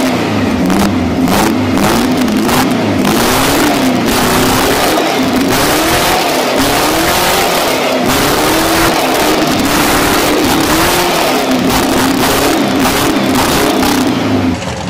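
Turbocharged VW 1600 air-cooled flat-four engine on a test stand, running and revved up and down again and again by hand at the carburettor, its pitch rising and falling every second or two. The sound drops off abruptly near the end.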